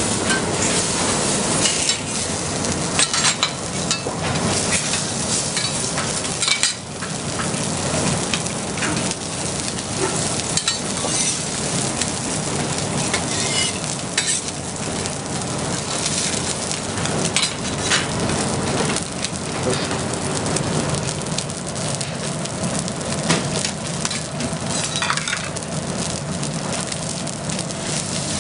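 Food frying in a hot pan, a steady dense sizzle and crackle, with scattered sharp clicks and clinks of utensils.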